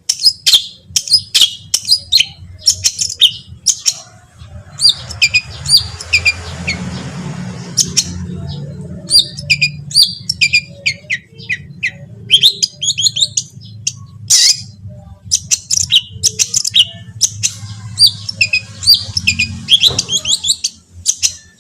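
Long-tailed shrike (cendet) singing a rapid, harsh song of short sharp chips and squawks in quick runs, with a steady low hum underneath.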